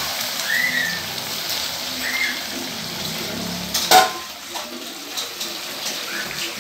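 Steady hiss of frying in a wok on a burner, with a metal ladle stirring and scraping against the pan. A sharp metallic clink comes about four seconds in, and the hiss then drops away.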